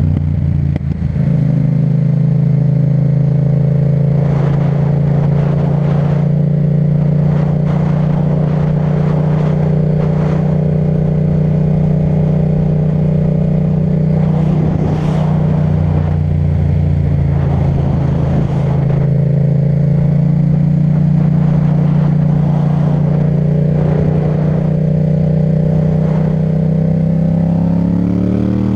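Yamaha MT-07's parallel-twin engine through an Akrapovic titanium exhaust, pulling at a nearly steady engine speed while riding. The pitch climbs at the start and falls away near the end as the throttle is rolled off.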